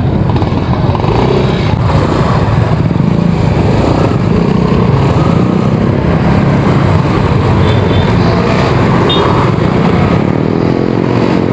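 Steady traffic noise heard from a moving bicycle: motorcycles and cars running close alongside in city traffic, mixed with wind buffeting the microphone.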